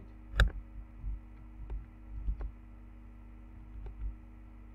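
A sharp click about half a second in, then a few fainter clicks and soft knocks from a computer keyboard and mouse being used, over a steady low electrical hum.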